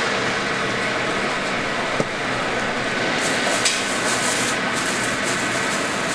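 Plastic bag crinkling and rustling in short bursts as fish cakes are packed into it by gloved hands, over a steady hiss of shop noise. A light knock comes about two seconds in and a sharper click a little later.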